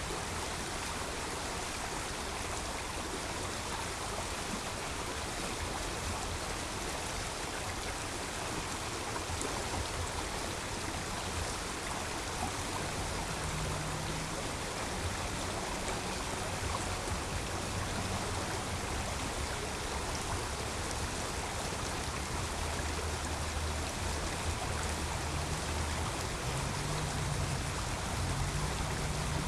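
A creek running with a steady rushing of water. Underneath is a low rumble of road traffic that swells about halfway through and again near the end.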